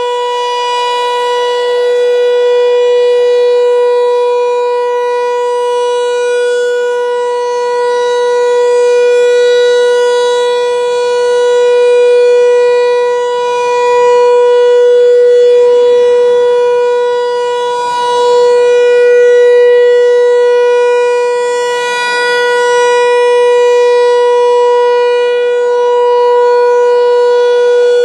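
American Signal T-128 electronic outdoor warning siren sounding one steady, loud tone, with no rise or fall in pitch. The loudness swells and fades every few seconds as the rotating speaker head sweeps past.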